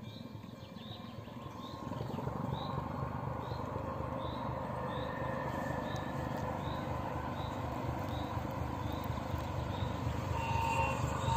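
Czech 'Bardotka' diesel locomotive approaching unseen, its engine rumble growing steadily louder, with two short higher tones near the end. A bird gives a short repeated chirp about every half second.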